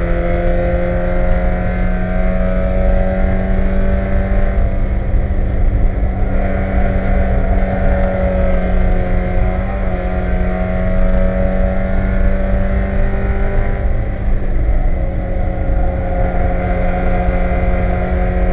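In-cockpit sound of a 1995 Mazda Miata Spec Miata race car's four-cylinder engine pulling hard at speed, its pitch climbing slowly, with two brief dips along the way. It runs over a heavy rumble of road and wind noise.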